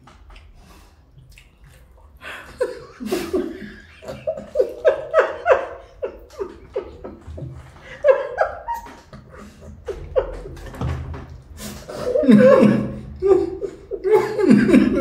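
Two people laughing in several bursts of short repeated voice pulses, loudest about twelve seconds in and again near the end.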